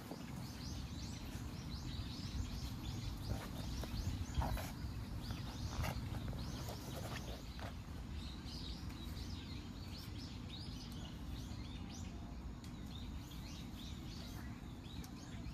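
Small birds chirping again and again in quick short calls over a steady low background rumble, with a few sharp clicks in the first half.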